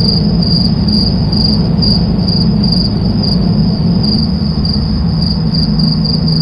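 Steady road and engine drone heard inside a car cabin at motorway speed, with a high, thin chirping tone pulsing a few times a second over it.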